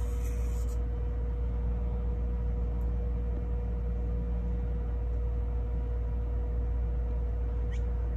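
Steady low background rumble with a constant mid-pitched hum, unchanging throughout, like a running machine or distant traffic.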